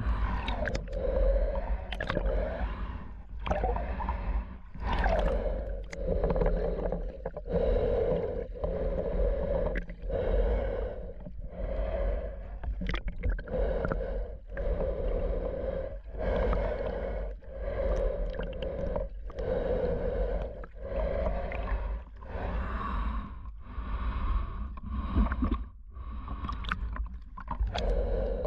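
Snorkeler breathing steadily in and out through a full-face snorkel mask, each breath swelling and fading about every second or so, over a steady low water rumble.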